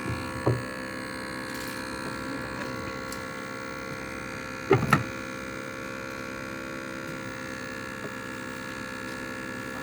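A steady mechanical hum made of several held tones, with a couple of brief knocks, one about half a second in and a louder one near the middle.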